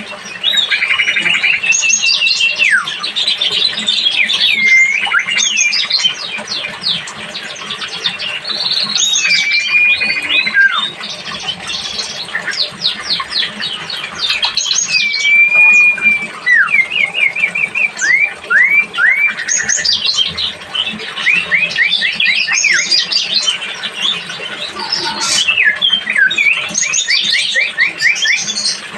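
Songbirds singing: a dense, unbroken run of quick chirps, down-slurred whistles and short rapid trills.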